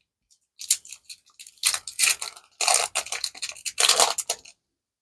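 Foil trading-card booster pack wrapper crinkling and tearing open by hand, a run of irregular crackly rustles lasting about four seconds.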